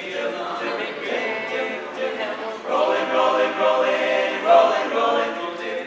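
Male a cappella group singing in close harmony, several voices together, swelling louder about halfway through and easing off near the end.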